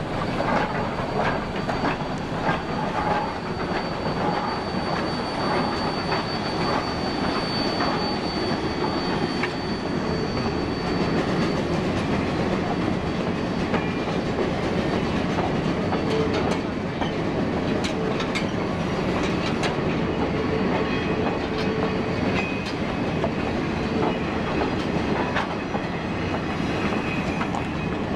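Geared steam locomotive passing close by, then a string of open passenger cars rolling past. There is steady rumbling and clanking, with wheels clicking over the rail joints, more clicks in the second half, and a thin high ringing during roughly the first third.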